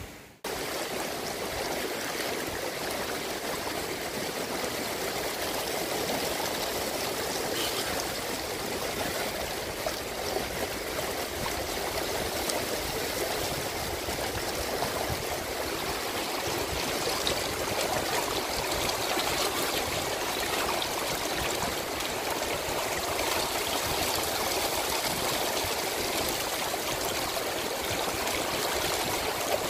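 Creek water running steadily through a small gold sluice box set in the stream, rushing and splashing over its riffles and matting.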